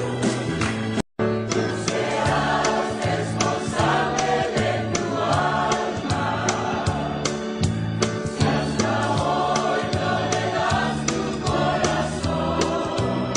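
Christian choir music with singing over a steady beat and a moving bass line. The sound cuts out for an instant about a second in.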